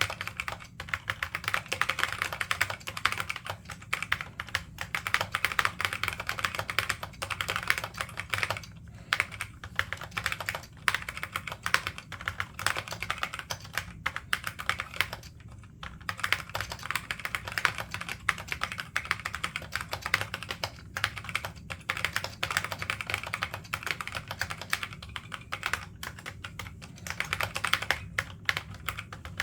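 Continuous fast typing on an ABiXi286 keyboard with Alps SKFM switches and Alps ABS doubleshot keycaps: a dense run of clicky keystrokes, pausing briefly twice.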